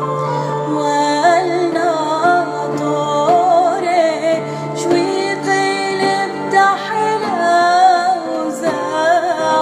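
A woman singing a Chaldean Sureth (Neo-Aramaic) hymn over instrumental accompaniment, her melody ornamented and wavering above a sustained low bass note.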